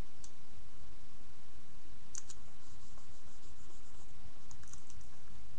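A few faint clicks and crackles of stiff card and tape being handled and bent, over a steady low background noise.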